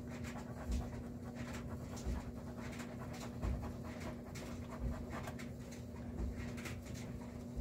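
Pencil rubbing dry-transfer lettering from its backing sheet onto a plastic O scale box car side: short scratchy strokes with a soft knock about every second and a half, over a steady low hum.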